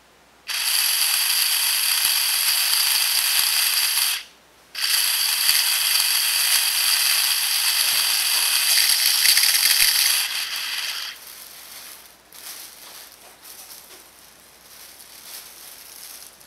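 Power drill running with a steady high whine, spinning a phacoemulsification tip for polishing; it stops briefly about four seconds in, restarts, and cuts off about eleven seconds in, leaving faint scratching and clicks.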